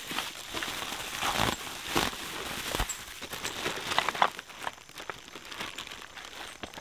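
Plastic bubble wrap crinkling and rustling as wrapped table frame parts are handled and unwrapped, with a few knocks as the parts bump together.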